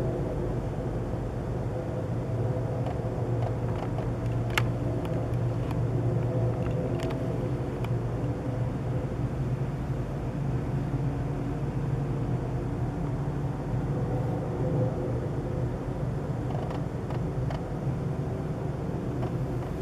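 An unexplained steady low hum, a drone with several held tones layered over it and a few faint clicks, the sort of night-time sound reported as a strange noise.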